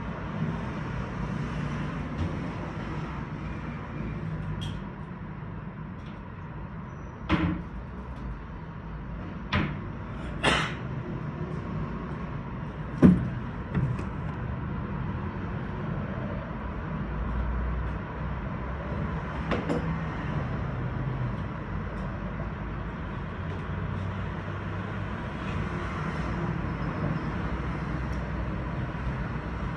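City street traffic: a steady low rumble of cars driving along the street below, with a few sharp knocks scattered through.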